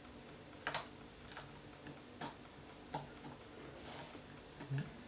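Glass cutter working a thin glass microscope slide: about six short, sharp clicks and brief scrapes at irregular intervals.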